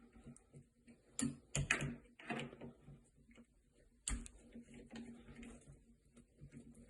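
Screwdriver working out the screws of a shower valve's trim plate: light ticking with a cluster of clicks and knocks, and a sharper knock about four seconds in.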